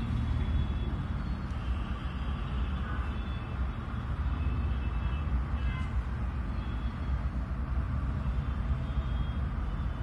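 Steady low background rumble, with no clear single event.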